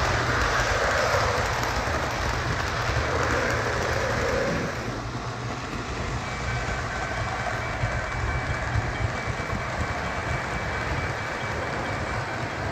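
O gauge model trains running past on three-rail track: a steady rumble and rattle of wheels and motors. About four and a half seconds in the sound drops a little and changes as a different train passes, and a faint high steady whine joins it.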